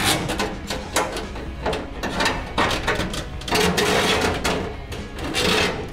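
Armoured metal-clad electrical cable and a metal box rattling, clicking and scraping as the cable is handled and worked into the box: an irregular run of clanks and scrapes.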